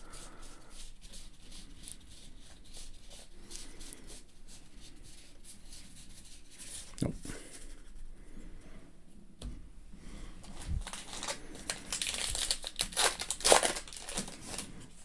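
Baseball trading cards flicked and shuffled through by hand, small soft clicks of card on card. Over the last few seconds a card pack wrapper crinkles and tears open, the loudest sound, peaking near the end.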